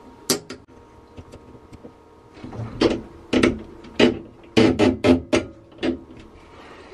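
Metal clicks and knocks of a lever being fitted onto the change-over valve of a dual Racor 500 series diesel fuel filter assembly. Two light clicks come first, then a run of sharper knocks from about halfway through.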